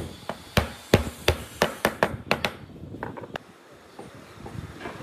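Wooden mallet knocking a wooden key down into a timber joint, about three blows a second for roughly two and a half seconds, then a few lighter knocks before it stops.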